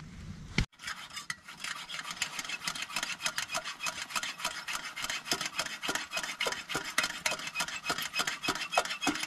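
Fire crackling: a dense run of rapid, irregular ticks and small pops that starts abruptly about a second in.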